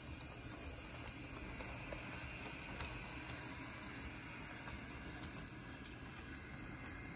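HO scale Athearn Genesis SD80MAC model diesel locomotive running along the track: a faint, steady hum and whine of its electric motor and gears with a soft hiss of wheels on rail, and a faint click about three seconds in.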